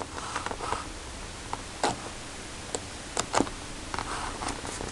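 Cardstock sheets being thumbed through in a paper pad: a soft papery rustle with several sharp ticks as sheet edges snap free of the thumb.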